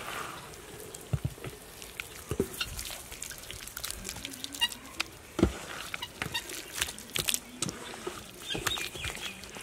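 Hands mixing raw chicken pieces in a wet spice marinade: irregular sticky, squelching clicks at an uneven pace.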